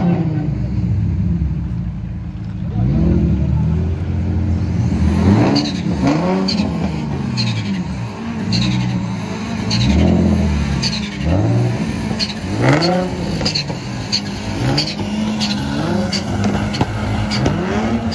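A sports car's engine being revved over and over, each rev rising and falling in pitch about once every second or so.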